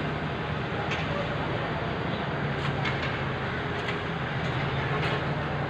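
Volvo wheeled excavator's diesel engine running steadily as it digs, with a constant low hum and a few short knocks of the bucket in the pit.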